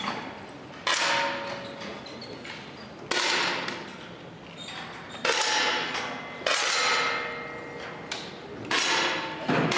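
10 m air rifles firing, about seven sharp shots at uneven intervals from several shooters, each one echoing in a large hall.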